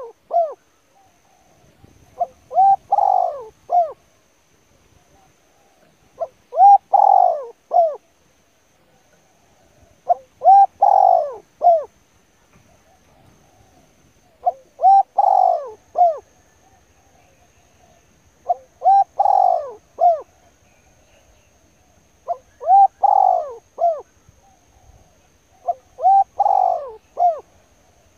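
A bird calling close by: a phrase of about four swelling, arched notes, repeated about every four seconds, seven times.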